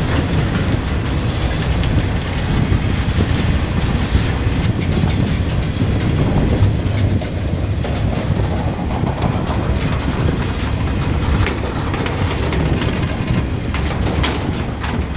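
Freight cars of a passing train, boxcars and tank cars, rolling by: a steady low rumble of steel wheels on rail, with scattered sharp clicks and clanks from the wheels and couplers.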